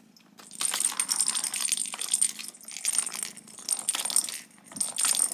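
Plastic balls rattling around the track of a cat's ball-track toy, with the bell inside one ball jingling. It comes in repeated bursts, starting about half a second in.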